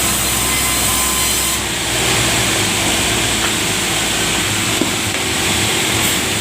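Sawmill saw blade cutting steadily through a large wooden log.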